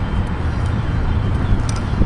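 Union Pacific freight train with container cars rolling past, a steady rumble of wheels on rails.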